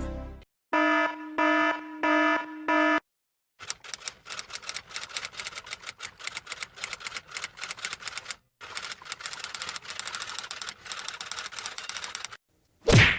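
Four short buzzing beeps, then a long run of rapid, clattering key clicks of typing, typewriter-like, with a brief pause midway. A short loud burst comes near the end.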